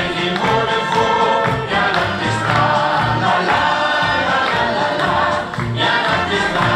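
Music with a group of voices singing a song together over a steady accompaniment.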